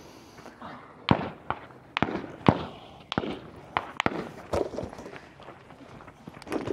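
Gunfire: about ten sharp cracks at uneven spacing, each with a short echo.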